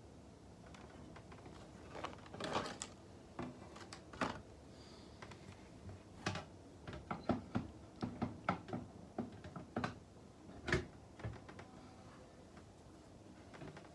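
Irregular small clicks and knocks of hard parts being handled, coming close together in the middle stretch.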